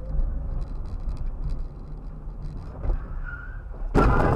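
Steady low rumble of a car driving slowly, heard from inside the cabin. Near the end, a loud, sudden crash as an oncoming car collides with its front.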